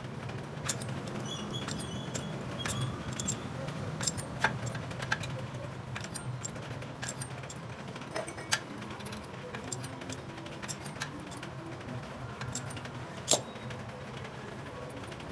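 Irregular small metallic clicks and taps of a jeweler's hand tools working on a gold ring, with one sharp click near the end the loudest, over a low steady hum.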